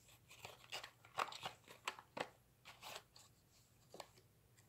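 Faint, irregular crackling and crinkling of a toy's packaging being handled and opened by hand, with quick sharp crackles over the first three seconds or so that thin out toward the end.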